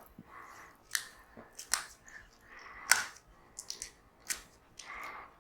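Adhesive tape being pulled off the roll and wrapped around a coaxial cable end, making irregular crackles and sharp ticks.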